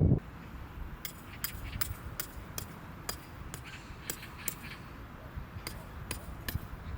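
A run of short, sharp light taps or clinks, about a dozen in all at roughly two a second, irregularly spaced.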